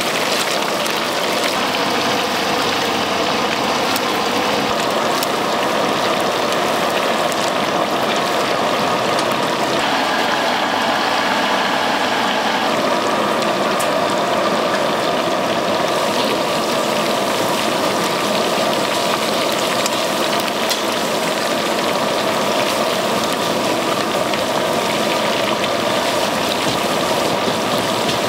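A large batch of shrimp and egg fried rice sizzling steadily in a wok over a gas burner, a continuous noise with no breaks.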